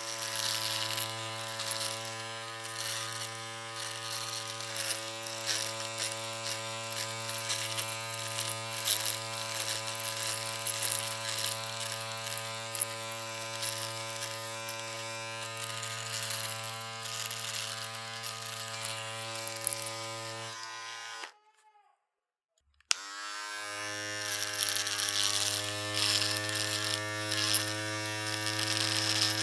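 Electric shaver running with a steady buzz. About two-thirds of the way through it is switched off and winds down, and after about a second and a half of silence it is switched back on with a click and buzzes again, rising briefly in pitch as it comes up to speed.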